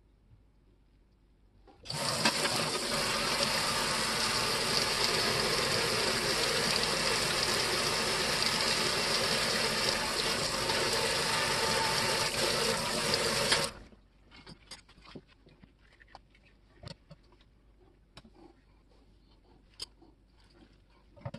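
Kitchen faucet running, its stream splashing on a metal shear blade and a stainless steel sink, turned on about two seconds in and shut off abruptly after about twelve seconds. A few faint clicks and taps follow.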